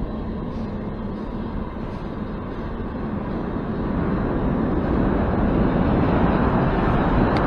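New York City subway J train running, a steady rumble and hiss that grows louder through the second half.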